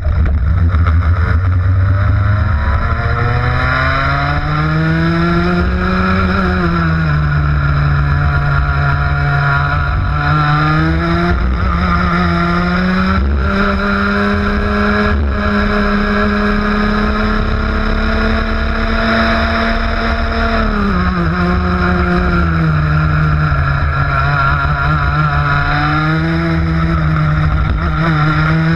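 Onboard sound of a ROK 125cc two-stroke kart engine racing. The revs climb and dip through the corners, hold high and steady along a straight around the middle, fall off sharply about two-thirds of the way through, then climb again.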